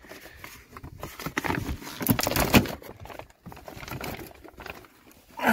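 Plastic vapor-barrier sheet being peeled off a car door's inner panel, crinkling and tearing away from the sticky butyl sealant in a run of irregular crackles, loudest about halfway through.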